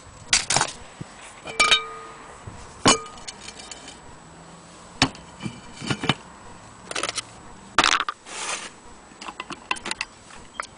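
Brass parts of an antique anniversary dome clock being handled on a tiled surface: irregular knocks, clicks and clinks of metal and glass. A couple of the strikes ring briefly with a clear pitch about 1.5 to 3 s in.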